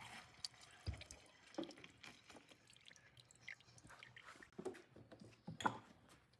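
Faint, scattered small clicks and soft knocks of hands working food and utensils, with low room noise in between.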